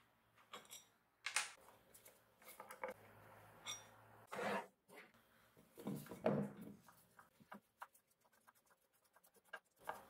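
Screwdriver backing a rusty slotted screw out of the steel mounting plate on an old wooden stool seat: irregular scrapes and creaks as the screw turns, then a run of quick small clicks near the end.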